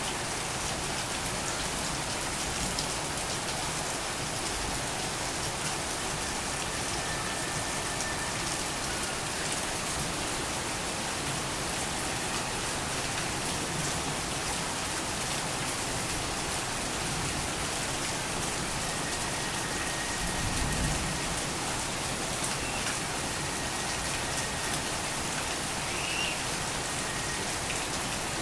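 Torrential rain falling steadily, a dense even patter of drops.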